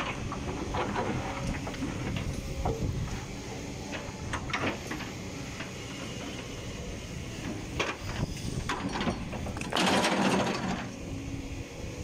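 Kobelco hydraulic excavator's diesel engine running steadily while the bucket scrapes and knocks against broken rock, with scattered sharp knocks and a louder noisy burst lasting about a second near the end.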